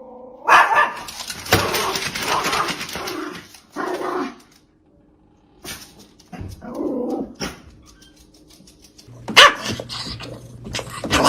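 A dog barking and growling in several separate loud bursts, with abrupt breaks between them.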